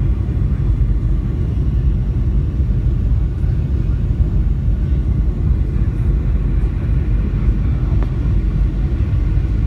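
Cabin noise of a Boeing 737-700 descending on approach to land: a steady low rumble from its CFM56 engines and the airflow past the fuselage, heard inside the cabin.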